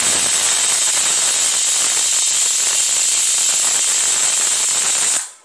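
Aluminium pressure cooker whistling: steam rushing out past the weight valve in a loud, steady hiss that cuts off suddenly about five seconds in. It is the cooker's second whistle, the sign that it has come up to full pressure.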